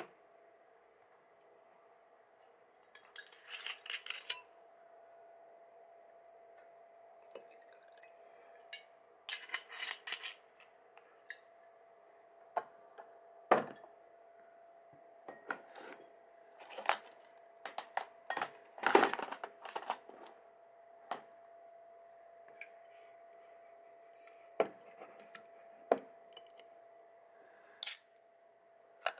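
Hands handling a metal drink can and other small objects on a desk: scattered knocks and clinks with two brief rustling bursts, over a faint steady hum.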